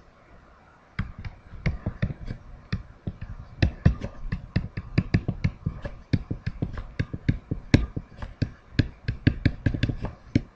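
Pen stylus tapping and clicking on a tablet screen while handwriting, a quick irregular run of sharp taps that starts about a second in.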